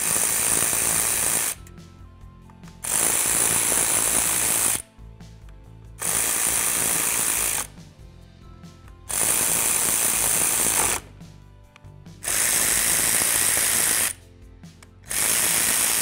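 Power ratchet with a Torx bit running in short spells, six times, driving in the bracket screws on a steering column.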